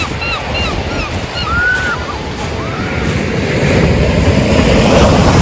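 Sea waves washing onto the beach, with wind buffeting the microphone, growing louder from about three seconds in. In the first half, a run of short high repeated calls is heard, then two longer ones.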